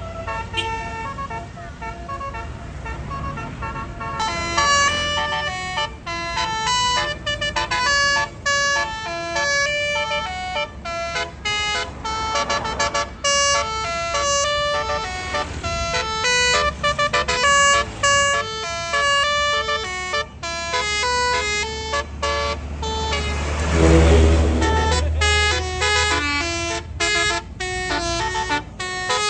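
Tour bus 'basuri' telolet horn playing a fast melody of short stepped notes over a steady low engine rumble. About three quarters of the way through, the rumble swells loudly with a rush of noise.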